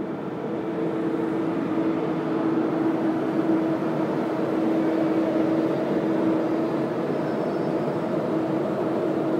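ICE high-speed train's power car running past close by: a steady electric hum with one held tone over the rumble of the moving train, growing louder over the first couple of seconds and then staying level.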